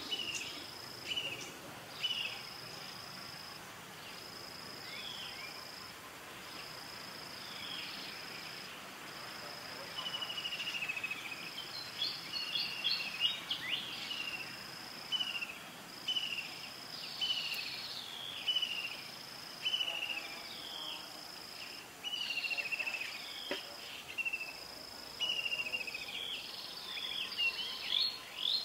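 Outdoor insect chorus: a high trill in repeated bursts about a second long, with short high falling chirps about once a second, busier in the second half.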